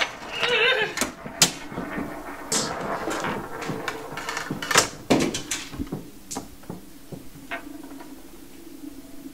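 Game marbles clicking and knocking against a board game and a wooden table, in a series of separate sharp clicks that thin out towards the end.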